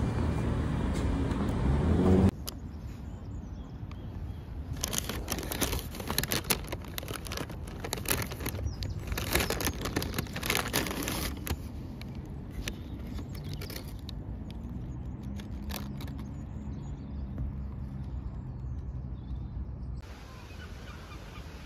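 A paper bag crinkling and rustling while being carried, heard as irregular crackles in the middle, over a steady low rumble of street traffic. A louder stretch of low noise at the start cuts off abruptly.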